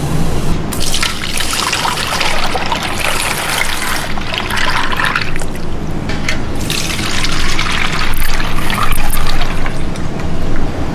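Beaten eggs pouring through a wire-mesh strainer into a metal bowl: a splashing trickle of liquid in two spells of a few seconds each, over a steady low hum.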